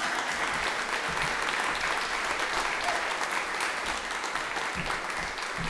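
Audience applauding, a room full of steady clapping that eases off slightly near the end.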